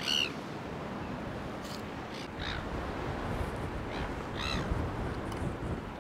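Birds calling: a few short, harsh caw-like cries, the clearest right at the start and about four and a half seconds in, over a steady low rumble.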